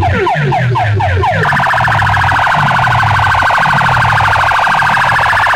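Electronic siren and alarm sound effects played very loud through a stacked cluster of horn loudspeakers over a low pulsing beat. A run of quick falling sweeps, about four a second, changes about a second and a half in to a steady high, rapidly warbling alarm tone.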